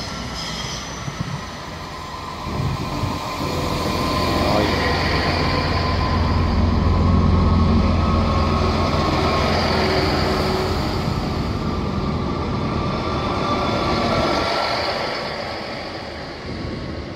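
Class 166 diesel multiple unit running into the platform and past close by. Its low engine and running rumble builds, is loudest about seven seconds in, then eases off near the end.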